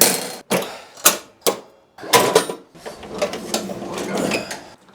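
Metal clanks and rattling from the cutting deck of a John Deere riding mower being taken off: four sharp knocks in the first second and a half, then a longer spell of clattering metal parts.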